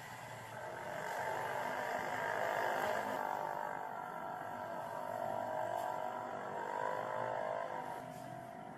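Street traffic noise: a steady hum of vehicle engines passing on the road.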